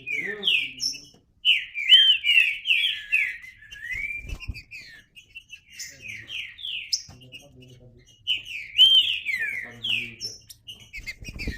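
Green-winged saltator (trinca-ferro) singing: phrases of quick, slurred whistled notes, in two main runs a few seconds apart.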